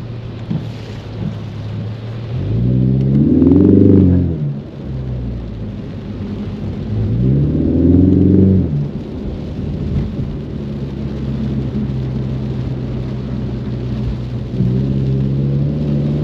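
Ford Mustang engine running while driving in rain, revving up and easing back twice, about three seconds in and again around eight seconds, then settling onto a higher, steadier note near the end. A steady hiss of rain and road spray sits underneath.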